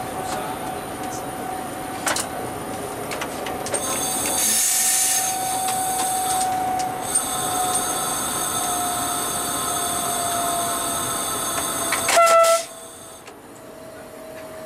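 Cab noise of an Alstom Coradia Meridian ETR425 electric train on the move: a steady whine from the electric drive that sinks slowly in pitch, joined by a high-pitched metallic squeal from about four seconds in. Near the end there is a brief loud tonal blast, after which the running noise drops away sharply.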